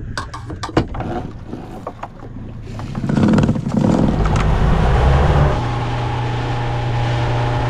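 A few knocks of gear being handled, then a boat's motor under way with a louder rushing noise in the middle, settling into a steady, even hum for the last couple of seconds.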